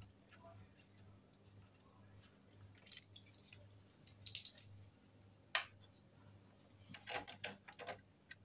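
Faint small clicks and metallic clinks of screws and their fittings being put in by hand into a wooden cot's side panel: a handful of separate taps, with a cluster near the end.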